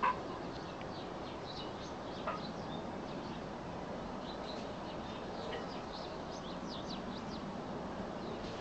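Small birds chirping in many short, scattered high calls over a steady background hiss, the calls busiest in the middle stretch. A sharp click right at the start and a fainter one about two seconds in.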